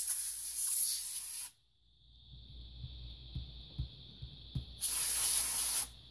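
Canned air duster spraying in two bursts: a long blast that cuts off suddenly about a second and a half in, and a second, shorter blast about five seconds in, blowing alcohol dry off a laptop's CPU. Light handling knocks between the bursts.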